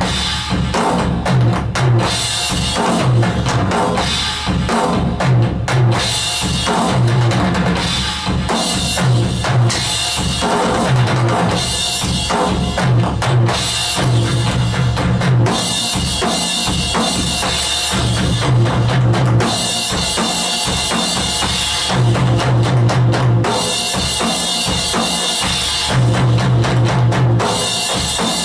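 Roland HD-3 electronic drum kit played in a steady, repeating beat, with bass drum and snare hits.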